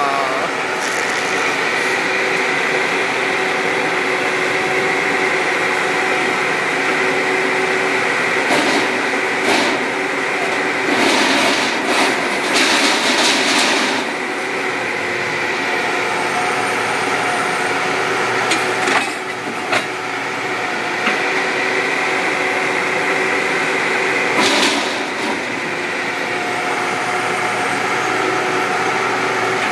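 A heavy crushing machine runs steadily with a droning, whining hum as the motorcycles are destroyed. Several louder noisy stretches break through, the longest near the middle.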